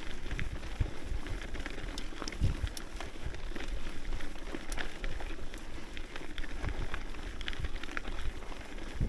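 Hardtail mountain bike ridden fast on a dirt trail: tyres crunching over gravel, with many small clicks and rattles from the bike over bumps and repeated low thumps.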